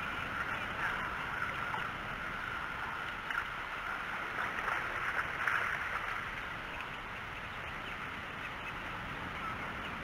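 Ducks quacking, most busily around the middle, over a steady high drone.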